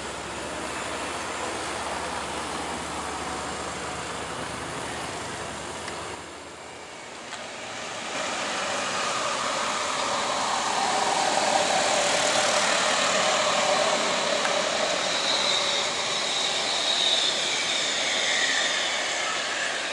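Passing road traffic: cars and a loaded pickup truck go by with their engines running. It grows louder from about eight seconds in, with engine pitch rising and falling as vehicles pass.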